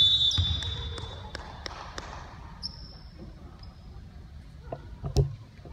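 A referee's whistle blown once, a steady shrill tone lasting about a second and a half at the start. Scattered sharp knocks follow, of a korfball bouncing on the wooden sports-hall floor, with one loud thud about five seconds in.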